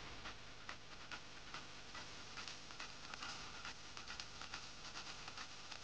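Faint, irregular clicking, a few clicks a second, over a steady hiss, like a ticking or crackling sound effect.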